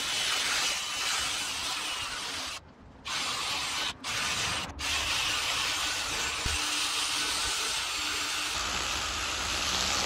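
Cordless drill spinning a bristle brush wheel against chainsaw-carved wood, a steady scrubbing hiss that stops briefly three times as the trigger is let off. The brush is taking the loose wood fuzz off the carved surface.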